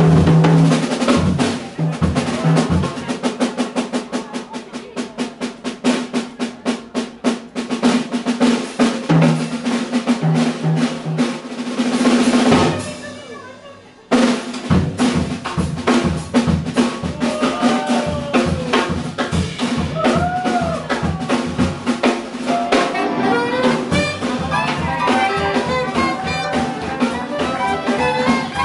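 Jazz drum kit solo on snare, toms and cymbals, with fast rolls. About halfway it fades briefly, then comes back in suddenly. Near the end the band's horns and other instruments join back in.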